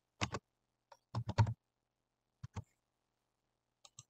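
Computer keyboard keystrokes, about ten separate key clicks in short pairs and clusters, as a number is typed into a field.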